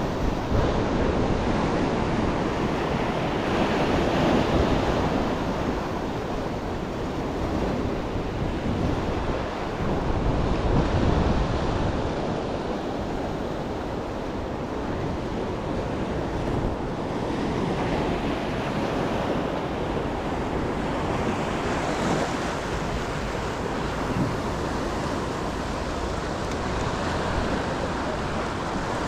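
Ocean surf breaking and washing on the shore, with wind buffeting the microphone. The wash swells louder a few times, about 4, 11 and 22 seconds in.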